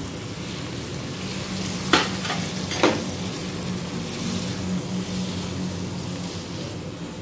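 Chopped tomatoes and onions sizzling in hot oil in a non-stick wok while being stirred with a spatula, with two sharp knocks of the spatula against the pan about two and three seconds in.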